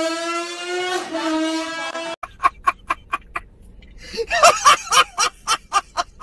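A steady pitched drone for about two seconds, then a man laughing: first quick, rhythmic giggles, then loud, hearty bursts of laughter.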